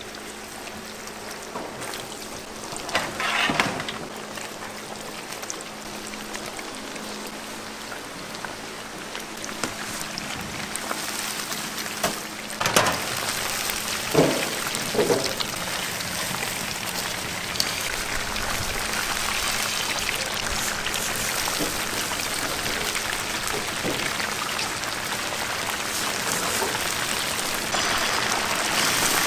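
Chicken deep-frying in hot oil in a cast-iron gamasot cauldron: a steady sizzle that swells louder from about the middle on. A few short knocks and clatters come through it.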